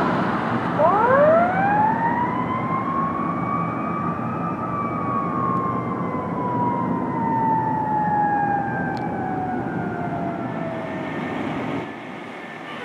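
Fire-department paramedic squad truck's siren giving one wail: it climbs quickly in pitch over about three seconds, then slowly winds down, over the rumble of the truck and street traffic.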